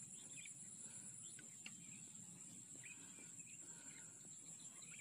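Faint steady high-pitched drone of crickets or other insects, with a few faint short chirps scattered through it.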